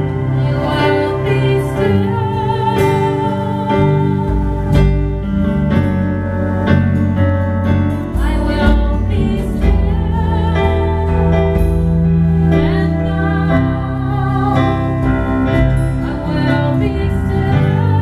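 A woman singing a slow song into a microphone, her held notes wavering with vibrato, over sustained keyboard chords.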